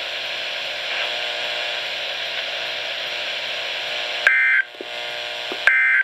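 Weather radio static hiss, then about four seconds in the first two of three short, loud two-tone digital data bursts about a second and a half apart: the Emergency Alert System end-of-message code that closes the NOAA Weather Radio alert.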